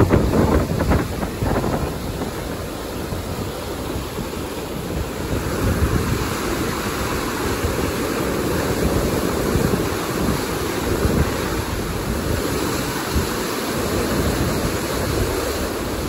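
A rain-swollen stream rushing in flood, a steady wash of churning white water. Wind buffets the microphone, most heavily in the first second or two.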